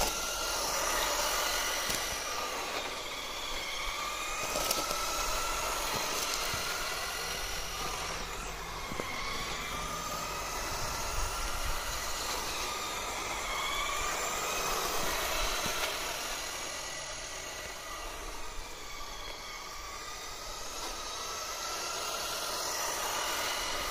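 Electric motor of a 1:10 scale Artin Nissan 350Z RC drift car whining as it drives on tarmac, its pitch rising and falling again and again with the throttle, over a steady hiss.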